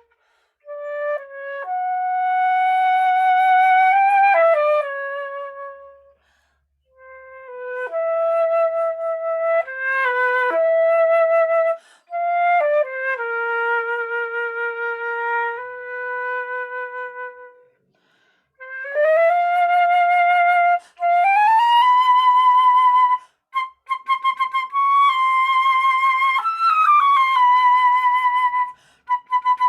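A solo woodwind instrument plays a single melody line. It holds notes in phrases separated by short breaks, and some notes slide up or down in pitch.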